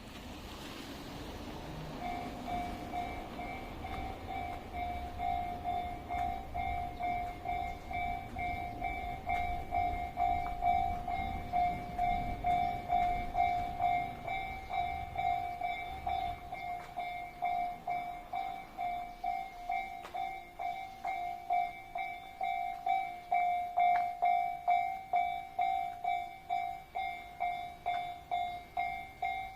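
Japanese railway level-crossing warning alarm ringing: a steady electronic ding, about one and a half strikes a second, starting about two seconds in. A low rumble runs underneath during the first half and dies away.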